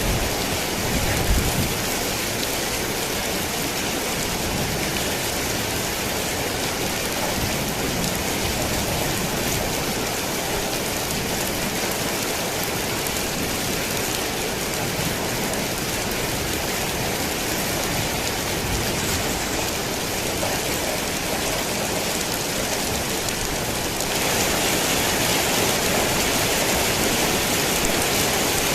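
Steady rain pattering on a tin roof, an even dense hiss, with a brief low thud about a second in. About 24 seconds in the rain grows louder and brighter.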